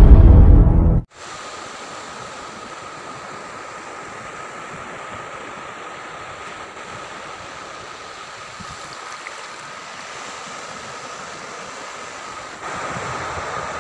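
Music cuts off abruptly about a second in, giving way to a steady wash of sea surf breaking on a beach, with wind on the microphone. The surf gets louder near the end.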